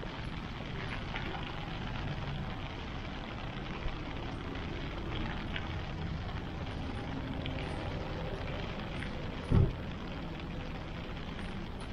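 Steady outdoor street noise, a continuous hiss and rumble typical of traffic, with faint scattered clicks and a single short low thump about three-quarters of the way through.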